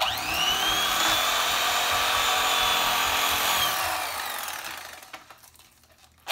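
Electric fillet knife running: its motor and reciprocating blades switch on abruptly with a steady high whine, wind down and fade away a little under four seconds in, then start up again right at the end.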